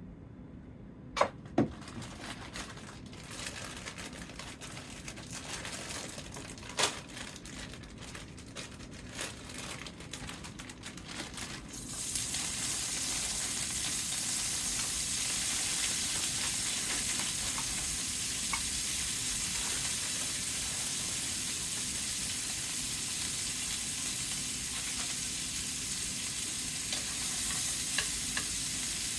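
Sesame oil crackling in a skillet with a few sharp knocks of a utensil on the pan, then about twelve seconds in a loud, steady sizzle starts as broccoli goes into the hot oil to fry.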